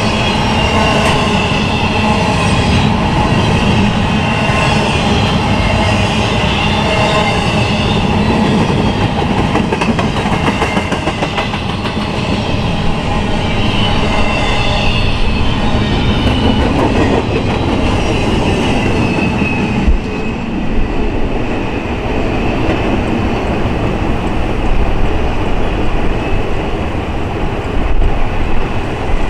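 Empty intermodal well cars of a freight train rolling past close by: a steady loud rumble and rattle of wheels on rail, with high wheel squeal coming and going above it.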